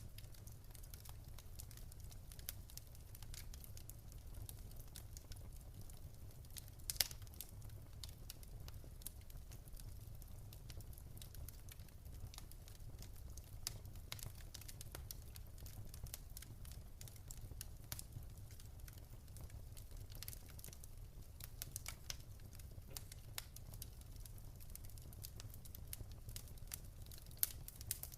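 Wood fire burning in a fireplace, crackling with many irregular small pops and a few louder snaps, one about seven seconds in and another near the end, over a low steady rumble.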